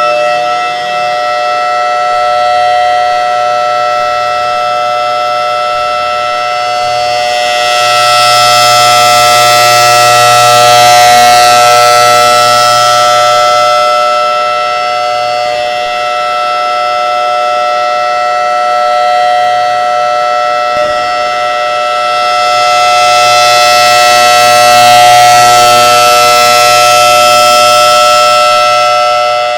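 Federal Signal Thunderbolt 1003 civil-defense siren sounding a steady alert tone, held at one pitch. It grows louder and fades twice as its rotating horn sweeps round.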